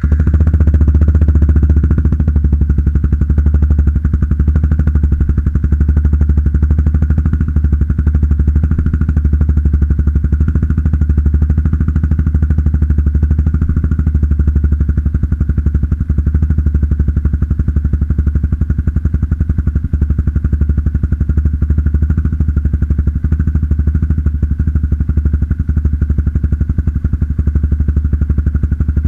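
Motorcycle engine catching on a cold start, then idling steadily through an aftermarket NOB1 Neo SS exhaust with a dB booster insert. It is slightly louder in the first couple of seconds, then settles into an even, deep idle.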